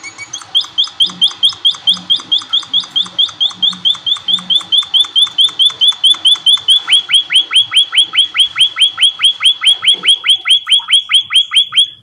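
Emprit kaji munia chirping a fast, even series of short high notes, about four to five a second. About seven seconds in the notes change to quick downward sweeps, and the series stops just before the end.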